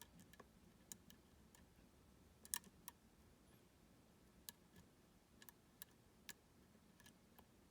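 Faint, irregular small clicks of a lock pick working the pins of a U-Shin Showa NX 13-pin lock, with one sharper click about two and a half seconds in.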